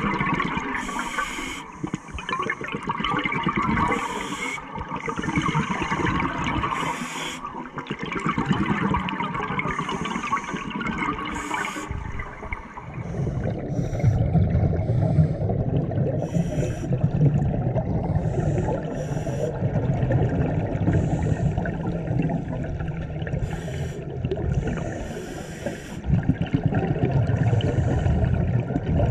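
Underwater bubbling and water noise picked up by a camera underwater, with short hissing bursts in the first half. About halfway through, a louder low rumble of bubbles sets in and carries on.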